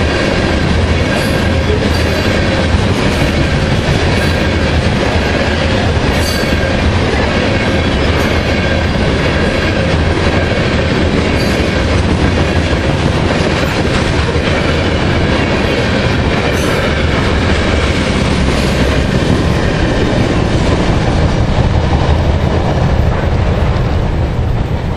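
Freight train of oil tank cars rolling past the crossing close by, a steady loud rumble and rattle of wheels on rail with occasional sharp clanks. It eases slightly in the last second.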